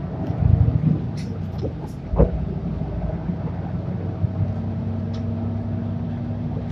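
Isuzu PJ-LV234L1 city bus's diesel engine running, heard from inside the passenger cabin, with light rattling clicks and a single thump about two seconds in.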